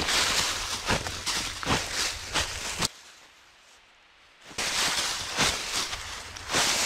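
Footsteps crunching through dry fallen leaves, roughly one step every half second. There is a quiet break of about a second and a half midway, then the steps go on.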